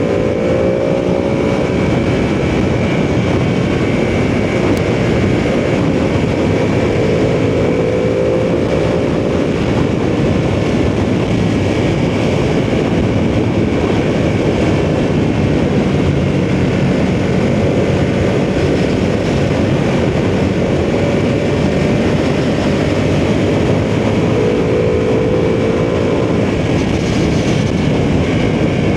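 Ducati sportbike engine running under way, its pitch rising and falling with the throttle, over steady wind rush.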